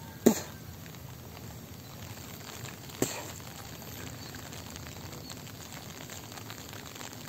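Light drizzle pattering steadily in fine, irregular ticks, with two sharp, loud taps, one near the start and one about three seconds in.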